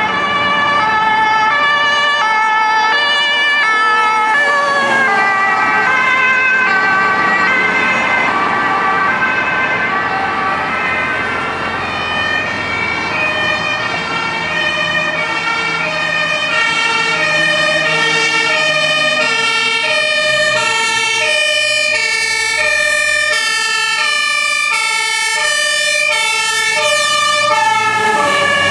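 Two-tone sirens (Martinshorn) of German fire engines sounding high-low-high-low. From about the middle, two sirens are heard at once, their note changes falling out of step with each other.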